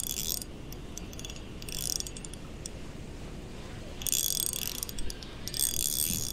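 Ultralight fishing reel cranked in short spells of rapid clicking, four in all, as a hooked bluegill is reeled in.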